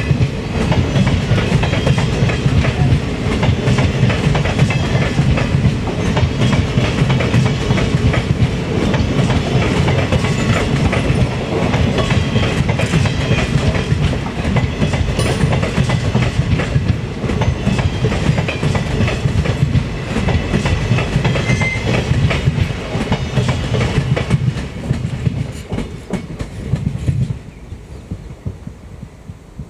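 Passenger coaches of an express train rolling past at speed, their wheels clattering over rail joints in a rapid, steady rhythm over a low rumble. The sound drops away sharply about 27 seconds in as the last coach goes by.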